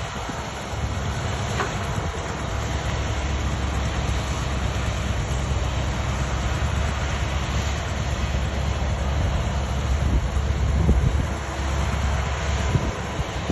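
Steady low rumble of a large vehicle running.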